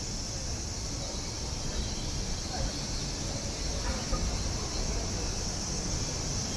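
Cicadas droning steadily in a high-pitched chorus over a low city rumble and faint murmur of distant voices.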